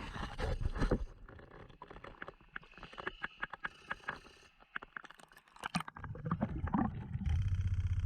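Underwater handling noise from a diver working the bottom: scattered clicks and scrapes, then a steady low rumble starting about six seconds in.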